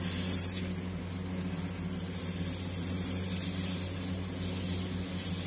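Airbrush spraying paint: a steady hiss of air, strongest in a short burst at the start.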